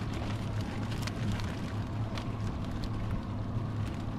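Boat engine idling with a steady low hum under wind and water noise. A few light clicks and rattles come from a wire bait trap full of small fish being handled on the gunwale.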